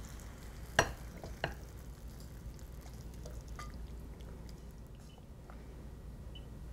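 Cooked pasta being tipped from a frying pan onto a ceramic plate and pushed along with chopsticks, with two sharp clicks a little under a second in and again about half a second later, over a faint low hum.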